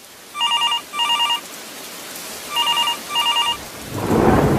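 Telephone ringing in a double-ring pattern, two trilling rings, then a pause, then two more, over a steady hiss of rain. A low rumble swells up near the end.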